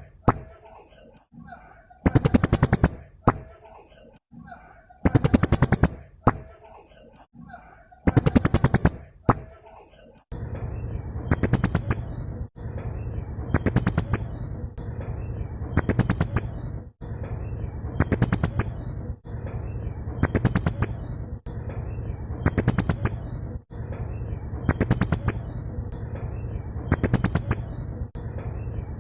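Blue-crowned hanging parrot (serindit) giving repeated bursts of rapid, high-pitched staccato notes, the 'tembakan' rapid-fire phrase; each burst lasts about a second and comes every two to three seconds. About a third of the way in, a steady background hiss sets in under the calls.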